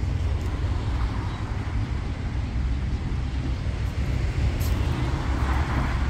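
City street ambience: a steady low rumble of road traffic, with a swell of passing-vehicle noise near the end.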